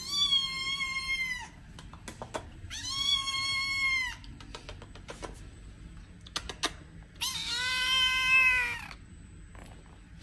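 Black-and-white kitten meowing three times, long drawn-out meows of over a second each. The last meow is a little lower in pitch.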